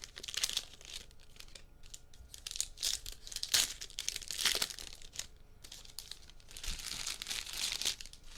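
Trading-card pack wrappers and box packaging crinkling and tearing open by hand, in several rustling bursts with clicks in between.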